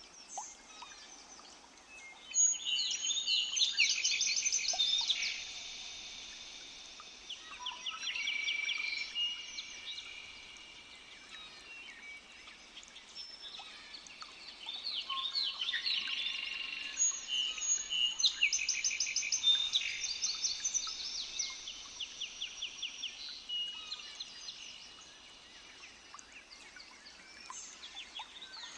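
Double-collared seedeater (coleiro) song: fast, high, rapidly repeated notes in phrases a few seconds long, loudest in a spell about two seconds in and a longer one from about fifteen to twenty-two seconds, with quieter stretches between.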